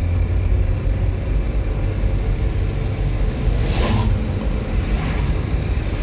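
Steady low rumble of a car driving, heard from inside the cabin, with the rushing whoosh of an oncoming car passing about four seconds in and a fainter one near the end.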